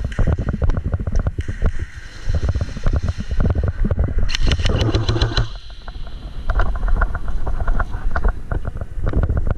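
Airsoft gameplay noise: a busy string of clicks and knocks over low rumble from handling and movement on the mic, with a quick run of evenly spaced sharp cracks, typical of an airsoft electric gun firing a burst, about four to five seconds in, and another run of rapid clicks later on.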